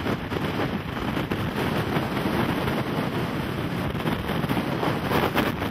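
Strong, gusty wind buffeting the microphone, a dense rushing roar with no let-up, from the winds around a large tornado.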